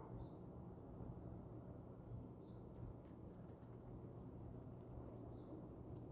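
Quiet outdoor ambience: a low steady hum with two brief, high bird chirps, one about a second in and one about three and a half seconds in, and a few faint ticks.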